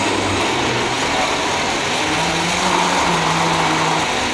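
Philips countertop blender running, its motor blending chunks of jackfruit with water into a smooth purée: a loud, steady whir.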